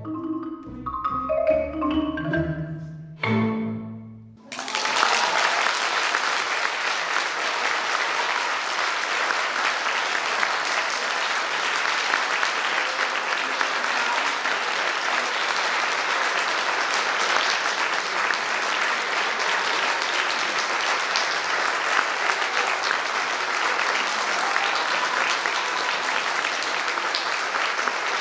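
Marimba and orchestra play the closing bars, ending on a final chord about four seconds in. Audience applause then breaks out suddenly and carries on steadily.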